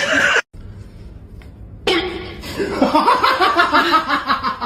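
A person laughing in rapid, repeated pulses, starting suddenly about two seconds in after a short quieter stretch.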